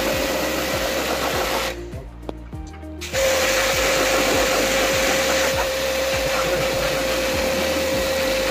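Portable high-pressure washer pump whining steadily with the hiss of its water jet spraying a split AC's indoor coil. The spray stops for about a second and a half near two seconds in, then starts again.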